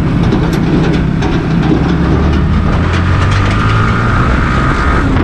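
Yamaha R15 V3 motorcycle engine running on the move, its note rising a little about two seconds in. A thin steady whine sounds over it for the last couple of seconds.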